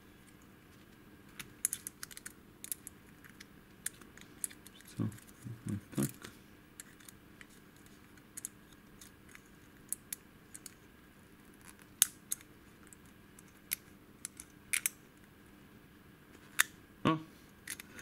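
A thick steel pick clicking and scraping inside the keyway of an old warded padlock, in scattered, irregular ticks. The pick is being pressed against the padlock's fixed inner elements to try to turn the mechanism open without a key.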